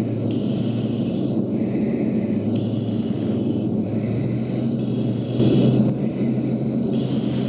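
Steady engine rumble with a constant low hum, swelling briefly about two-thirds through.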